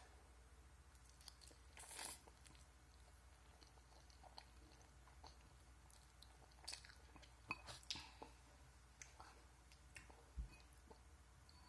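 Faint chewing and wet mouth sounds of a person eating noodles, with a short noisy slurp about two seconds in and a cluster of small clicks around seven to eight seconds.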